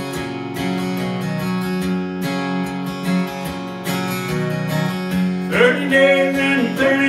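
Acoustic guitar strummed steadily through an instrumental break, and a man's singing voice comes back in about five and a half seconds in.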